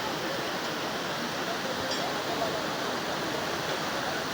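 Floodwater rushing steadily, a continuous even roar of fast-flowing water.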